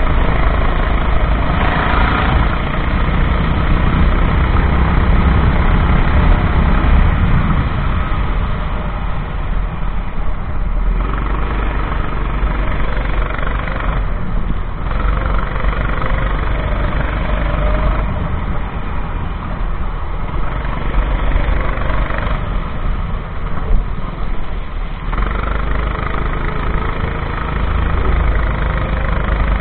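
Racing kart engine running hard on track, its pitch rising and falling as the throttle opens and closes through the corners.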